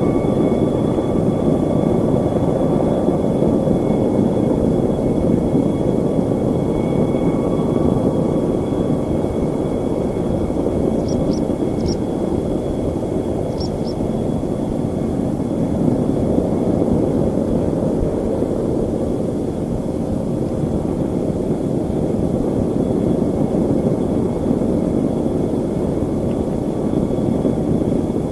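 Airliner engines running with a steady, unchanging drone, with thin high whining tones above it. A few faint ticks sound near the middle.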